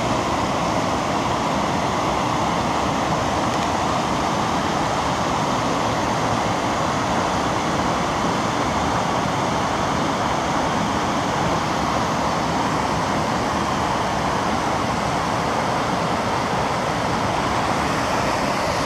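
Whitewater of a mountain creek rushing over granite slabs in cascades, a steady, unbroken rush of water.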